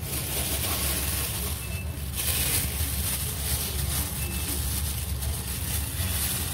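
Plastic bag crinkling as raw beef is handled in it, loudest about two seconds in, over a steady low hum.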